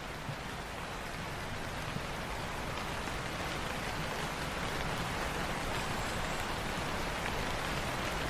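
Light rain falling steadily, a dense patter of drops on a surface, slowly growing louder.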